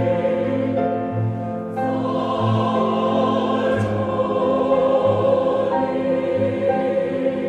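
A choir singing a slow worship song in long, held chords.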